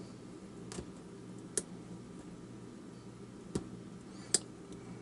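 Sharp little metallic clicks, about five at irregular intervals with the loudest about four seconds in, from a pick and tension wrench working the pins of a Master Lock Pro Series padlock's KIK cylinder. A steady low hum runs underneath.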